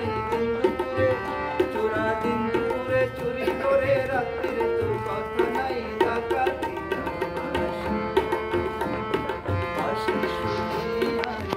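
Harmonium and tabla playing together: sustained harmonium reed chords and melody over a steady rhythm of tabla strokes.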